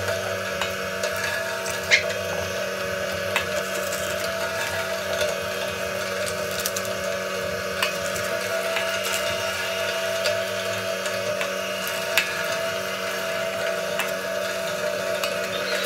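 Electric meat grinder running steadily with a motor hum while it grinds meat and vegetables pressed down its feed tube, with a few sharp knocks, the loudest about two seconds in.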